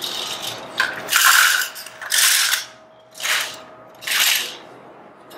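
A platoon moving through the manual of arms in unison: a series of sharp clacks and rattles of hands slapping rifles and rifle parts, about one a second, each slightly smeared because the many rifles don't land exactly together.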